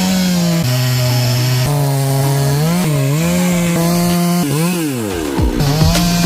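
Stihl chainsaw running at high revs while cutting through a large mangium (acacia) trunk; its engine pitch drops twice as the chain bogs in the cut and then climbs back up.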